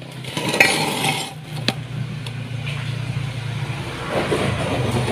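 Metal engine parts clinking, scraping and rattling by hand as the cam chain and its guide are fitted in an open motorcycle crankcase, with a sharp click about a second and a half in. A steady low hum runs underneath.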